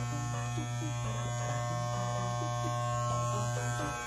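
Electric hair clippers buzzing steadily as they shave wet hair off a head, the hum dipping briefly near the end.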